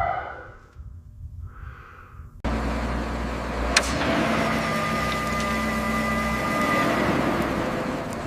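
Crane's engine running steadily under load, a low rumble with a thin whine over it, coming in suddenly about two and a half seconds in. A single sharp click sounds about a second later.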